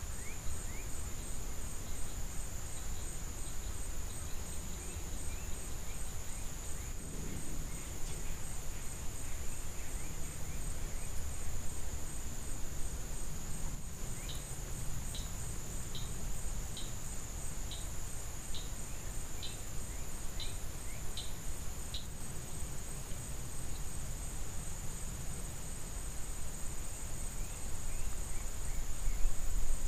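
Outdoor insect chorus: a steady high drone throughout, with a few short bird chirps and, in the middle, a run of evenly spaced high ticks about two a second, over a low wind rumble.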